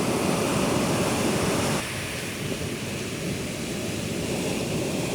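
Rough, stormy sea surf breaking on the shore: a steady rush of waves that drops suddenly in level a little under two seconds in.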